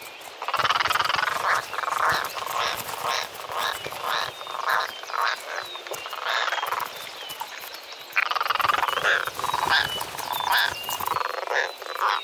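European roller giving harsh, rasping croaks in rapid series, in two bouts separated by a short lull about two-thirds of the way through.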